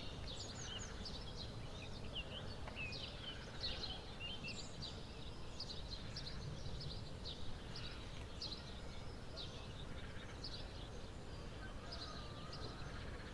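Small birds chirping and singing, many short quick calls overlapping, over a steady low rumble of outdoor background noise.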